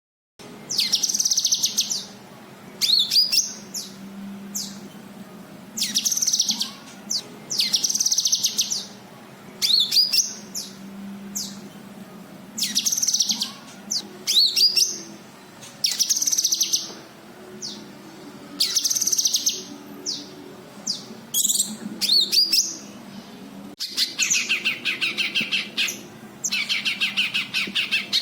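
Cucak kinoi singing: loud, high whistled phrases with quick up-and-down slurs, repeated about every two seconds, turning into rapid trilled runs near the end.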